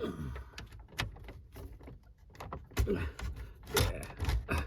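Clicks, knocks and scrapes of a car radio head unit being levered and worked out of its dash slot with improvised removal tools.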